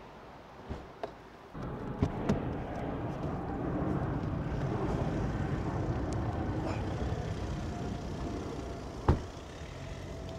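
A car running close by for several seconds: the noise starts about a second and a half in, swells, and eases off near the end, with a few light knocks and one sharp knock about nine seconds in.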